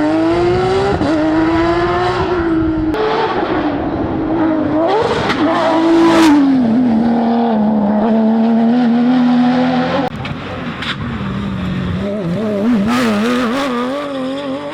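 Porsche rally car engine pulling hard through the gears, its pitch climbing and then falling back at each shift, with sharp cracks around the middle. About ten seconds in the level drops suddenly, and then an engine note wavers quickly up and down in pitch.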